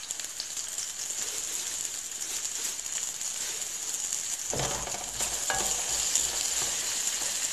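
Sliced onions sizzling in hot vegetable oil in a stainless-steel frying pan, a steady high hiss, while a wooden spatula stirs them. About halfway through comes a brief louder, lower stir sound as the onions are moved.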